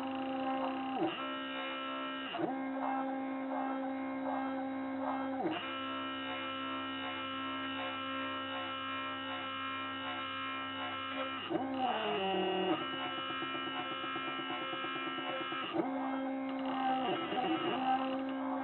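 DIY wooden-frame GRBL CNC mini router running a job: a steady motor whine with many overtones. Its pitch dips briefly and comes back several times, with a longer stepped drop about twelve seconds in, as the machine slows and changes direction.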